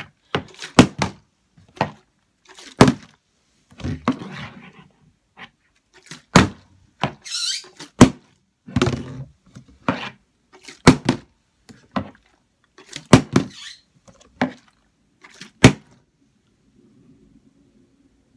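A large plastic Gatorade bottle, partly filled with liquid, flipped over and over and thudding down on a wooden table about once a second, the liquid sloshing between hits. The thuds stop about three-quarters of the way through, when the bottle lands and stays standing upside down on its cap.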